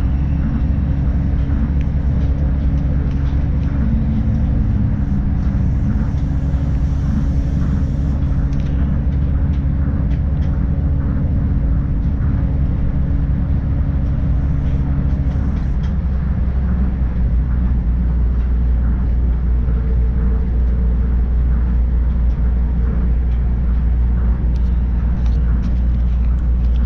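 Tokyo Monorail train running at speed, heard from inside the car: a steady low rumble from its rubber tyres on the concrete guideway beam, with a humming tone that stops past the middle.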